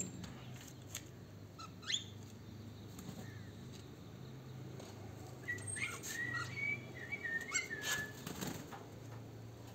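Small cage birds chirping: one short rising call, then, about halfway through, a quick run of short high chirps, with scattered light clicks and rustles between.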